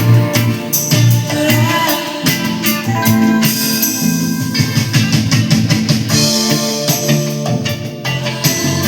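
Pop-rock music playing, with guitar, drums and tambourine and some singing.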